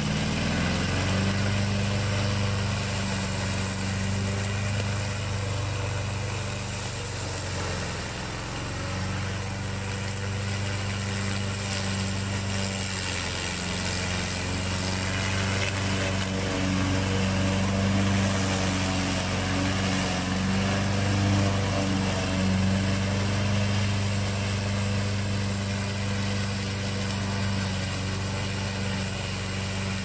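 Remote-control tracked slope mower's 23 hp 764 cc two-cylinder gasoline engine running steadily under load while the mower cuts through tall, dense reeds, its pitch holding nearly constant.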